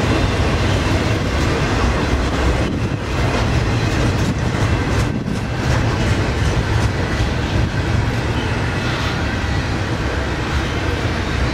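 Double-stack container well cars of a freight train rolling steadily past, with the continuous noise of steel wheels running on the rails, heaviest in the low range.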